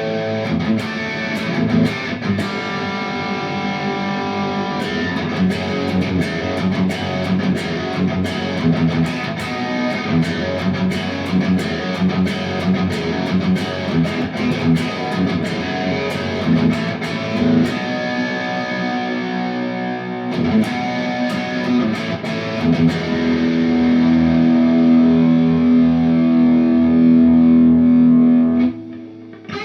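Fender Stratocaster on its single-coil bridge pickup played through the Little Jim MOSFET distortion pedal (three cascaded BS170 MOSFETs, built to emulate a cranked Marshall amp's crunch): bright, high-gain distorted riffs and chords. Near the end a louder chord is held for several seconds, then cut off.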